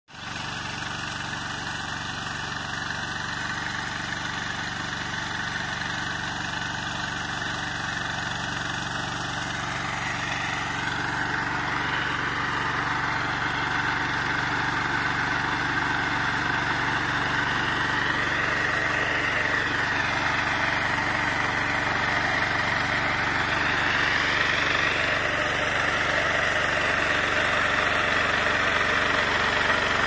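Small engine of a walk-behind power tiller running steadily under load as it tills the soil, slowly growing louder.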